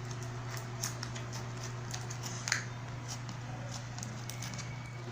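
Slime being handled and pressed into a plastic palette: scattered small sticky clicks, one louder click about two and a half seconds in, over a steady low hum.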